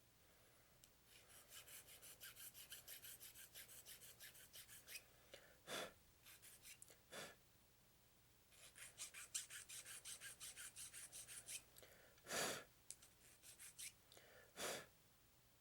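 A file or sanding stick rasping back and forth on a small plastic model-kit part, cleaning off nub marks, in two quick runs of short even strokes. A few short louder sounds come between them.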